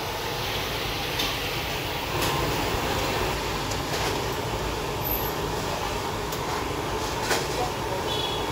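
Youtiao deep-frying in a large wok of hot oil: a steady sizzle with a low rumble underneath, and a few light clicks.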